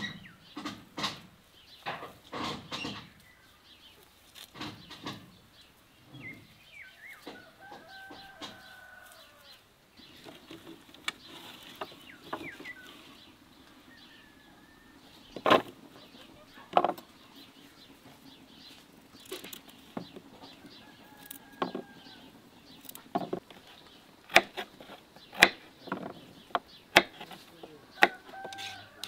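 Sharp wooden knocks and clicks as produce is set down on a wooden table and a knife strikes a wooden cutting board while carrots are cut, loudest in the second half. Earlier there is irregular rustling, and short bird calls sound now and then throughout.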